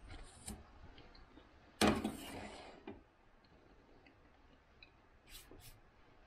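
Small clicks and rubs of a glass and plate being handled on a folding camp table, with one louder rasping scrape lasting about a second, starting about two seconds in, and two brief rubbing sounds near the end.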